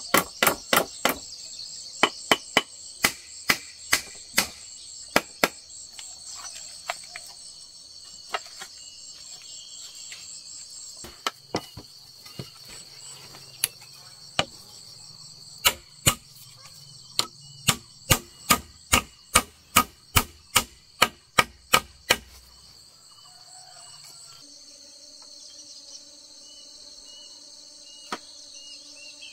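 Irregular runs of sharp blows from a hand tool striking wood, at times two or three a second, over a steady high chirring of insects. The blows stop shortly before the end, leaving only the insects.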